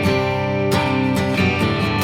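Background music led by strummed guitar, with chords struck at a regular pace.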